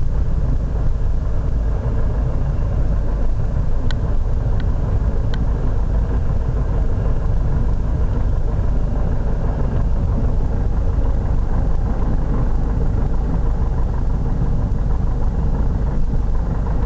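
Light aircraft's piston engine and propeller droning steadily, heard inside the cabin. Three short clicks about four to five seconds in.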